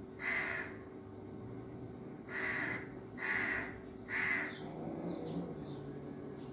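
A crow cawing: four caws of about half a second each, the last about four seconds in.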